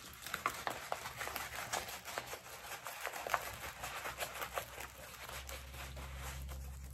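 Diamond painting canvas being rolled up by hand: soft, irregular crinkling and small ticks as the canvas and its cover film are handled.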